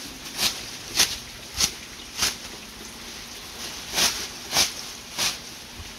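Plastic bag rustling in rhythmic swishes, about every half second: four, a pause of over a second, then three more, over the steady hiss of rain.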